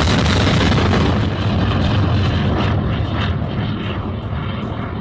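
Rocket motor of a ground-launched missile roaring as it climbs away after launch, loud and rumbling, fading and growing duller from about a second in.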